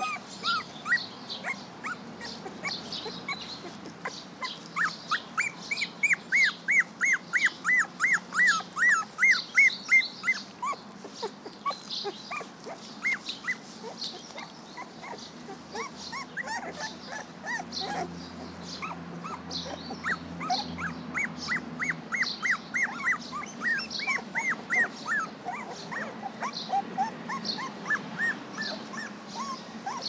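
Young puppies whining in quick runs of short, high, arching cries, about three a second, with birds singing in the background.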